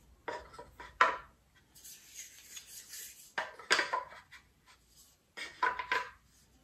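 Cedar wood pieces of a dice tower being handled and fitted together: several sharp clicks and clacks as pieces snap together magnetically, with a soft rubbing of wood on wood between them.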